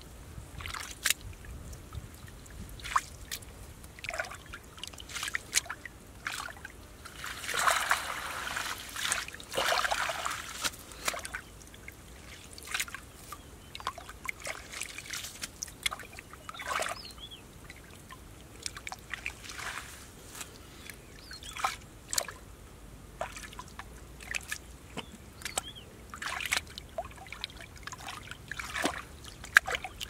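Hands splashing and sloshing through shallow muddy water, feeling along the bottom for fish, in irregular splashes and trickles. The splashing is densest from about seven to eleven seconds in.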